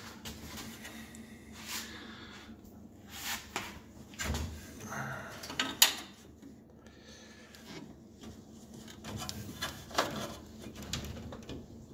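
Hands handling hoses and wiring behind a car's radiator: scattered clicks, light knocks and rustling as the hoses are routed, with sharper clicks about six and ten seconds in.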